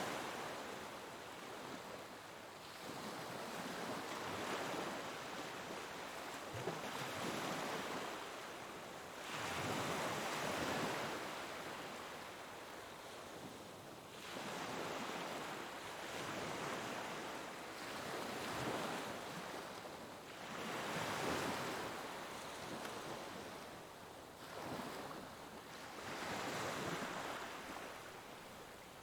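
Ocean waves breaking and washing on a shore, the surf swelling and easing every few seconds in a steady, unbroken rhythm.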